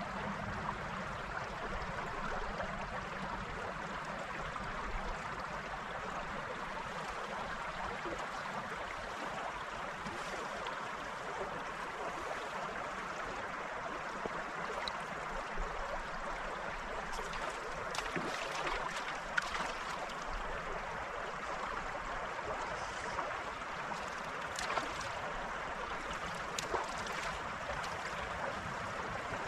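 Shallow stream water running, a steady rushing babble, with a few faint ticks in the second half.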